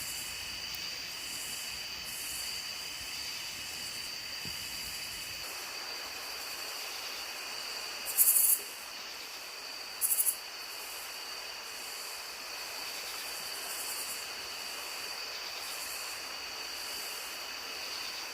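Night insects trilling steadily in two high, even tones over the rushing of a creek. Twice, about eight and ten seconds in, a short, loud, high-pitched buzz cuts in for about half a second.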